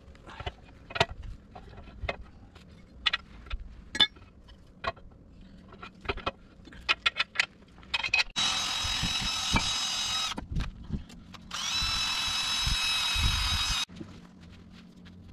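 Sharp metallic clinks and knocks of suspension strut parts being handled, then a handheld power tool's motor runs steadily twice, about two seconds each, starting about eight seconds in.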